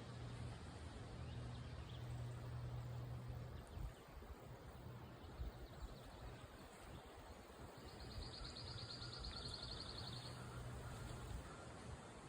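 Outdoor marsh ambience with a low hum that comes and goes. About eight seconds in, a rapid high-pitched trill lasts about two seconds.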